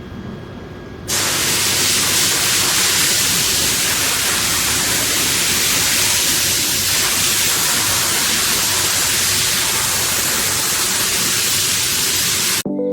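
Steady, even hiss like white noise or static, starting suddenly about a second in and cutting off just before the end; a quieter hiss comes before it.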